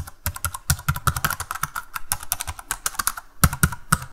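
Rapid typing on a computer keyboard: a quick, irregular run of key clicks, easing off briefly a little after three seconds before a last few louder keystrokes.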